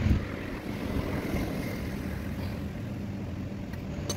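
Steady low background rumble with a faint hum, and one short sharp click near the end.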